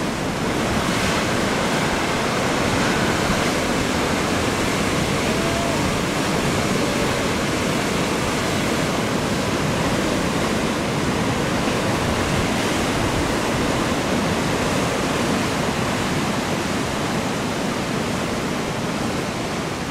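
Ocean surf: a steady, even roar of breaking waves, with no single crash standing out.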